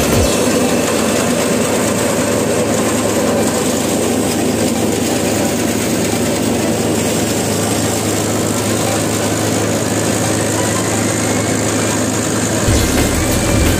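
Tractor-driven paddy thresher running steadily on the tractor's PTO shaft, a constant loud mechanical hum of the threshing drum and tractor engine. The low engine rumble comes up stronger near the end.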